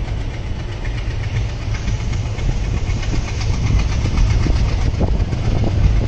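Passenger train running on the track: a steady low rumble with wheel-on-rail clicks and knocks that come thicker and a little louder in the second half.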